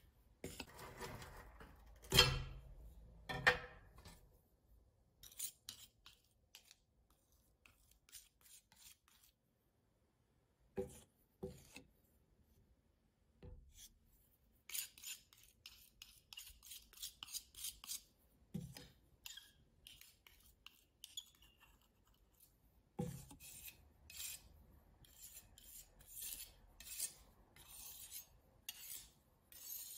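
Metal palette knife scraping thick watercolour paste across a glass slab and off into a plastic bottle, in many short scraping strokes broken by a few sharp knocks.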